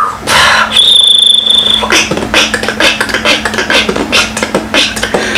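Human beatboxing: a fast run of percussive mouth-made beats, with a high whistled note held for about a second near the start and a low steady hum underneath.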